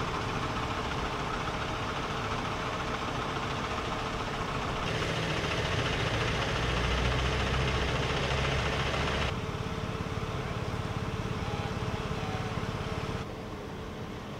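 Outdoor street ambience dominated by steady vehicle engine noise, like idling and passing traffic. It is louder, with a deeper rumble, between about five and nine seconds in, and it changes abruptly in level a few times.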